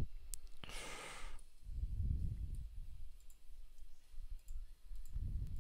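Scattered clicks of a computer mouse and keyboard, with a short breath-like hiss about a second in.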